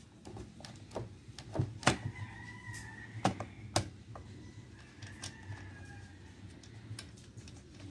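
Scattered sharp clicks and knocks from hands handling a DeWalt DW5200 chainsaw's plastic side cover and loose chain, the loudest about two seconds in and twice near four seconds, over a low steady hum.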